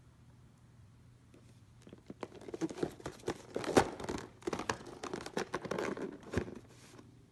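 Cardboard box with a clear plastic window being handled and turned over: crinkling and rustling of the plastic and card, with sharp clicks and knocks. It starts about two seconds in and stops shortly before the end.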